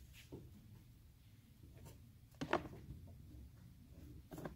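A few light knocks and clicks as the cut-open halves of a plastic coolant expansion tank are handled, the sharpest about two and a half seconds in, over a low room hum.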